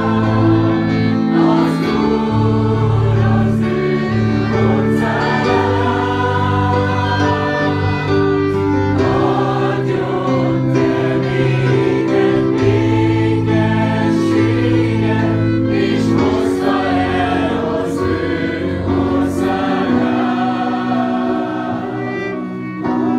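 A church congregation singing a worship song together.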